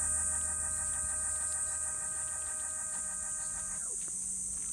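Cicadas droning in a steady, high-pitched buzz. Underneath, a steady low hum made of several even tones dies away with a slight drop in pitch about four seconds in.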